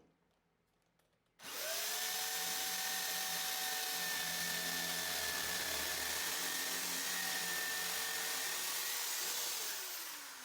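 Electric drill switched on about a second and a half in and running steadily for about eight seconds, then winding down with a falling pitch near the end.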